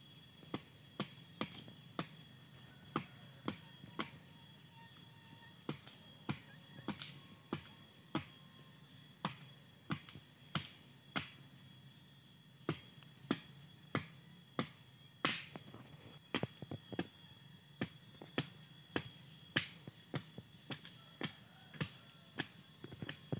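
Machete blade striking wood in short, irregular chops, a sharp knock about every half second.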